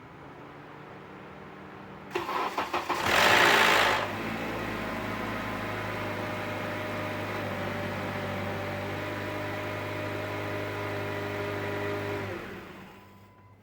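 Honda Accord engine cranked by the starter and catching, with a loud rattle for about a second just after it fires, then idling steadily until it is switched off near the end. The rattle is a start-up noise that the owner likens to the timing chain and that appears only after the car has sat for half an hour or more.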